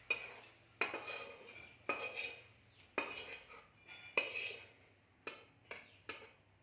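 Metal spoon striking and scraping a metal kadai about eight times, each hit ringing briefly, as the fried onion and spice mixture is scooped out of the pan.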